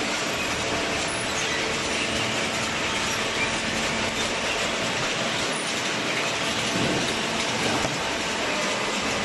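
Auto-tie baler running while baling cardboard: steady mechanical noise with some clicking.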